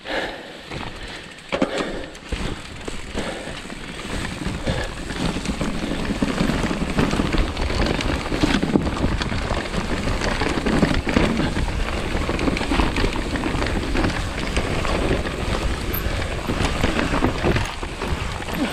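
Mountain bike descending a dirt forest trail: tyres rolling and the bike rattling over roots and loose ground in a steady noisy rush with many small knocks, getting louder a few seconds in as speed builds.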